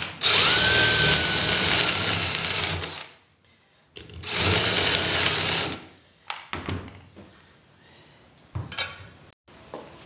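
Cordless drill with a step bit boring a hole through the side of a steel tin can. It runs for about three seconds with a rising whine that levels off, stops, then runs again for nearly two seconds. A few light clicks and knocks follow near the end.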